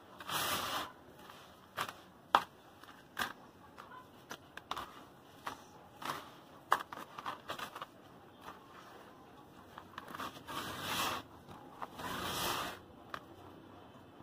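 Hands digging and stirring through dry, gritty crumbled soil in a plastic tub: grainy crunching and scraping with many scattered sharp clicks of grit. There are longer rustling swishes as handfuls are pushed through, once right at the start and twice in quick succession near the end.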